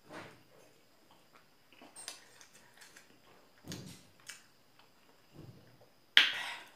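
Chopsticks clicking and scraping against a plate during a meal, small scattered ticks with a dull knock midway, and a louder sharp scrape-like noise near the end.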